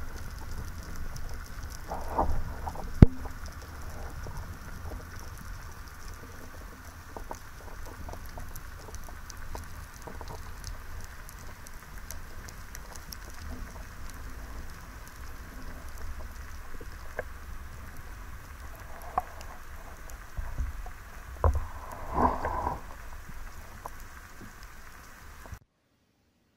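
Underwater sound during a freedive: a steady crackling patter over a low water rumble, with a few louder knocks, including one sharp click about three seconds in and a cluster a little past twenty seconds. The sound cuts off suddenly about a second before the end.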